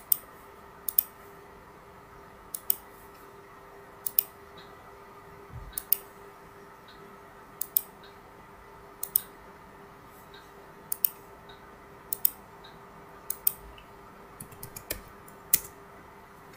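Computer mouse button clicking: sharp clicks, most a quick press-and-release pair, coming about once every one to two seconds over a faint steady hum.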